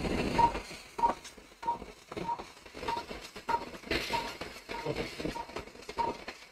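Patient monitor beeping in time with the pulse: short high beeps, nearly two a second, over scattered clicks and knocks from handling the endoscopic equipment.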